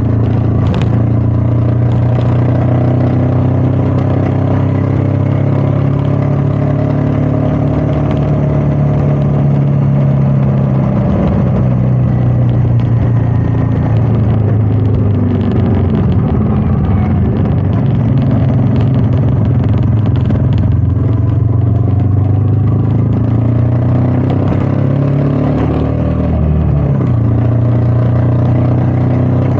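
Royal Enfield Meteor 350's single-cylinder engine running under way, its pitch drifting up and down with the throttle, with wind rushing over the microphone.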